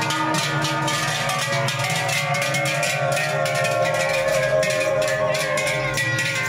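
Many large Swiss cowbells clanging and ringing together in a continuous, uneven jangle as a bell-hung cattle herd and costumed herders walk past.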